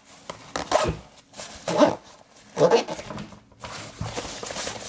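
A dog gives three short barks or yelps about a second apart, then a faint steady rustling begins near the end.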